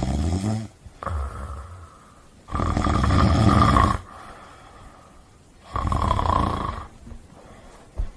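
A dog snoring loudly: several long, rasping snoring breaths a second or two apart, the longest about a second and a half.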